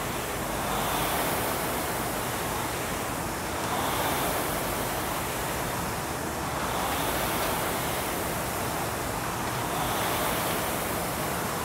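Several Concept2 indoor rowing machines' air-fan flywheels whooshing as they are rowed, the rush swelling with each drive stroke about every three seconds.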